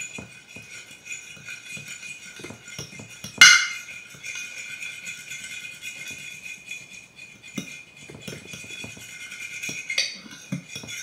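Background music with light shaking, rattling percussion, and one sharp knock about three and a half seconds in.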